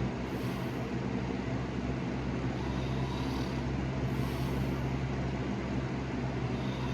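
Soft snoring, an airy breath swelling every few seconds, over a loud steady low hum.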